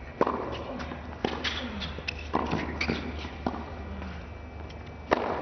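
Tennis rally on a hard court: sharp pops of racket strings striking the ball, roughly one every second, with lighter ball bounces in between, over a low steady hum.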